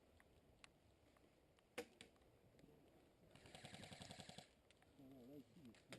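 Airsoft electric gun firing one rapid full-auto burst of about a second, a fast even string of shots, with a single sharp crack a couple of seconds earlier.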